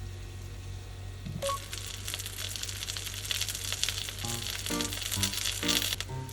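Flour-and-egg-coated chicken breast frying in oil in a pan, sizzling and crackling. The sizzle jumps from faint to loud and dense about a second and a half in.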